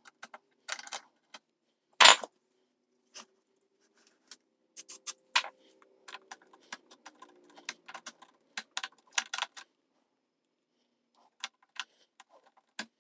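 Small clicks and rattles of preamp tubes being pushed into and pulled out of their sockets, working Deoxit D5 contact cleaner into the socket contacts. One short, loud spray hiss comes about two seconds in.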